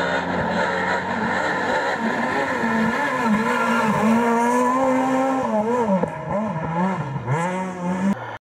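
Rally car engine running hard on a stage, its pitch swooping down and back up several times with throttle lifts and gear changes, then cutting off suddenly near the end.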